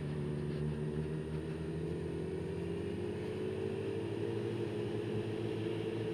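Motorcycle engine running at a steady pitch while riding at an even speed.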